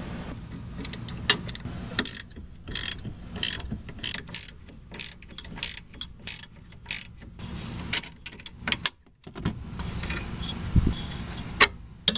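Ratchet wrench clicking in quick repeated strokes, about one and a half a second, as the nut on a front sway bar end link is undone with the stud held by a Torx T30 bit; a short pause, then a few more clicks near the end.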